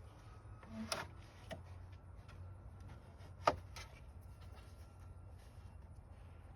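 A few scattered light clicks and knocks of tools and parts being handled during radiator removal, the sharpest about three and a half seconds in, over a low steady hum.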